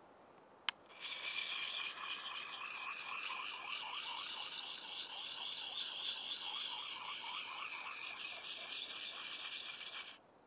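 A single sharp click, then a rhythmic rasping scrape, several strokes a second, which cuts off abruptly near the end.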